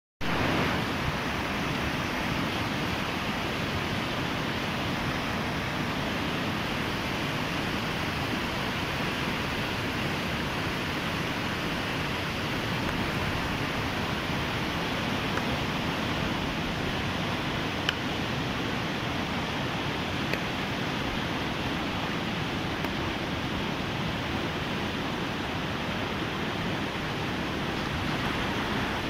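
A river in flood: a steady, loud rush of fast, muddy water pouring over and around boulders.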